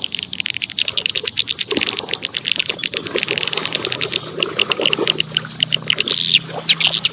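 Toy being washed in water: a fast, irregular run of scrubbing and splashing strokes.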